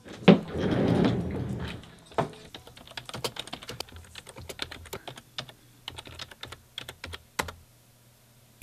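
A thump and a short rush of noise at the start, then fast, irregular typing on a computer keyboard, ending with one harder key press near the end.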